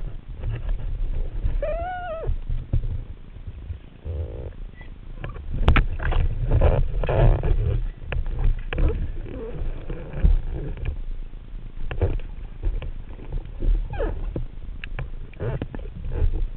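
Underwater noise picked up by a camera in a waterproof housing: a low rumble of moving water with scattered clicks and knocks, busiest between about six and eight seconds in. A short, arching pitched sound is heard about two seconds in.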